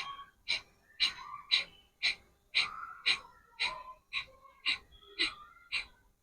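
Kapalbhati pranayama done fast: a steady run of short, forceful exhalations through the nose, about two a second, with the inhalations passive between them.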